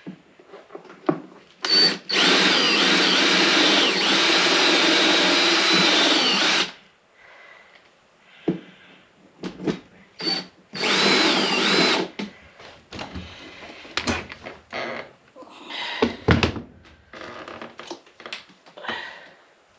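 Power drill with a step bit boring a hole through a motorcycle saddlebag: one run of about five seconds near the start and a shorter run about halfway through, the motor's whine dipping and rising in pitch as the trigger is worked. Scattered clicks and knocks of handling follow.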